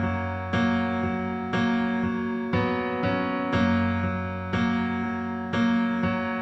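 Instrumental song intro: sustained keyboard chords, one struck about every second, each fading slowly into the next.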